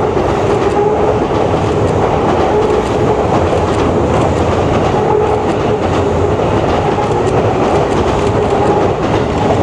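Train passing close by: a loud, steady rumble with wheel clatter, and a steady whine running under it.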